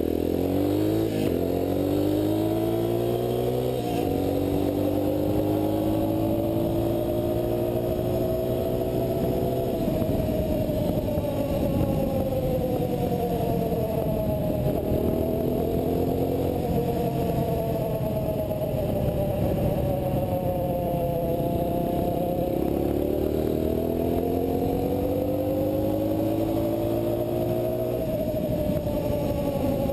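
Shineray 200 motorcycle's single-cylinder four-stroke engine running under way. Its note climbs through the gears, drops back sharply at each shift, and eases off and picks up again several times.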